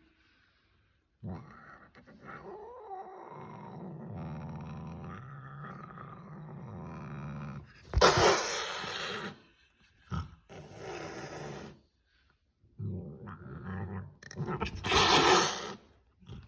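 Angry British shorthair cat growling low and long, broken by loud hisses about eight seconds in, again a couple of seconds later, and near the end, as it faces off with a plush reindeer toy.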